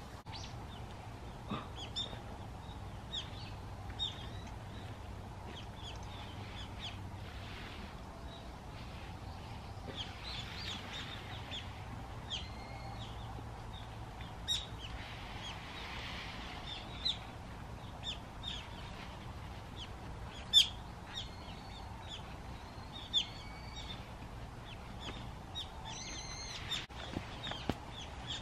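Small wild birds chirping at intervals, short high notes every second or so, with one louder chirp about two-thirds of the way through, over a steady faint outdoor background.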